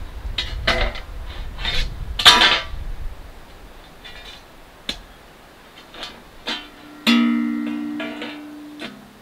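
Fire-pit parts being handled and set down, a few short scrapes and clanks with wind rumbling on the microphone. About seven seconds in, a metal part is struck and rings out with one loud pitched clang that dies away over about two seconds.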